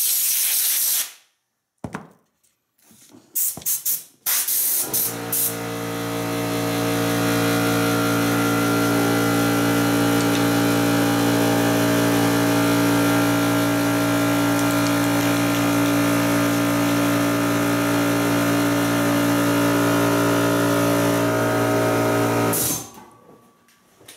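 Compressed-air blow gun hissing in a long blast and then a few short bursts. About five seconds in an air compressor starts and runs with a steady hum, refilling its tank, then cuts off suddenly near the end.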